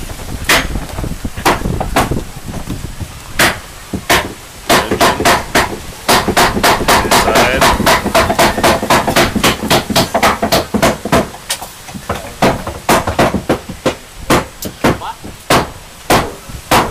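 Hammering: a long run of sharp, repeated hammer blows, coming fastest, about three or four a second, in the middle of the stretch and slower, roughly one or two a second, before and after.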